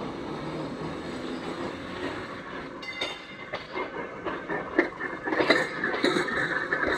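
Passenger train rolling by, its wheels clicking over the rail joints. The clicking grows louder from about halfway, and there is a brief high wheel squeal about three seconds in.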